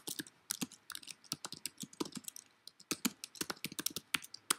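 Typing on a computer keyboard: an uneven run of key clicks, several a second.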